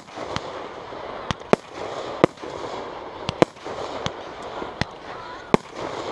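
Aerial fireworks shells bursting overhead: about nine sharp bangs at irregular intervals, some coming in quick pairs.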